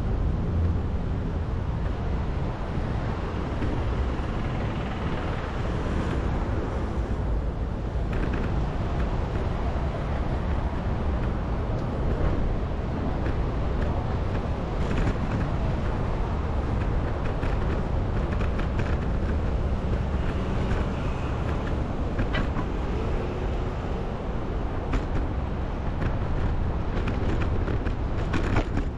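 Steady wind and road noise on the microphone of a camera carried on a moving bicycle, with city traffic around it.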